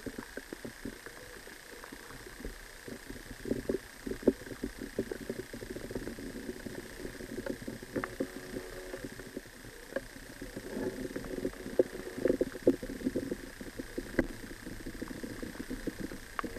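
Underwater river sound picked up by a submerged camera: dense, irregular clicking and crackling, busier at times, over a faint steady high tone.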